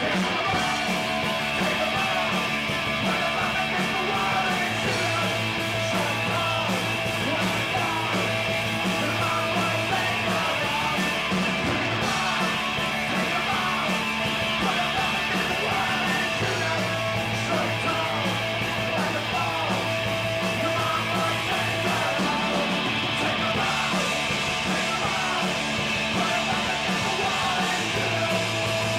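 Punk rock band playing live: electric guitar, bass guitar and drums, with a vocalist yelling into a microphone.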